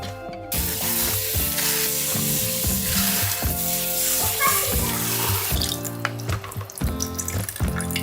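Kitchen tap running into a sink, starting about half a second in and stopping after about five seconds, over background music.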